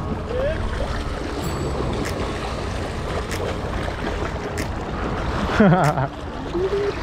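Small waves washing over a rocky shoreline, with wind rumbling on the microphone and a few faint clicks. A short voiced exclamation comes near the end.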